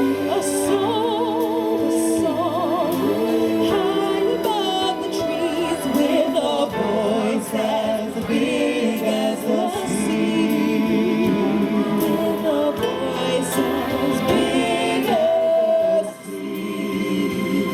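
Several voices singing a Christmas song with vibrato on long held notes over instrumental accompaniment; the music dips briefly near the end.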